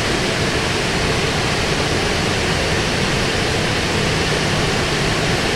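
Steady rush of Snoqualmie Falls, a large waterfall: an even roar of falling water with no breaks.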